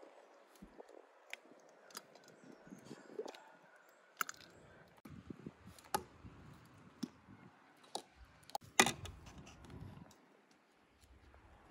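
Sparse faint clicks and light taps of glass bottles and a plastic funnel being handled while pomegranate juice is poured, with one louder knock about nine seconds in.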